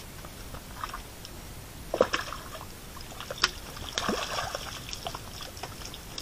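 Water splashing and sloshing in irregular bursts, the loudest about two seconds in and again about three and a half seconds in: a small bream thrashing at the surface as it is drawn in and landed.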